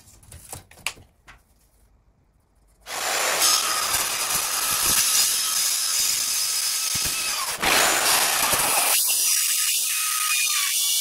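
Multi-material mitre saw cutting steel square tube. A few light clicks of the tube being handled, then about three seconds in the saw starts and runs loud through the steel, with a brief dip near eight seconds before it cuts on, the pitch wavering near the end.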